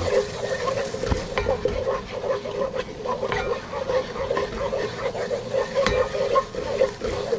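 A roux of flour, butter and oil being stirred in a hot pot: a spoon scraping the pan bottom through a sizzle, with a few sharp knocks of the spoon against the pot. A steady hum runs underneath.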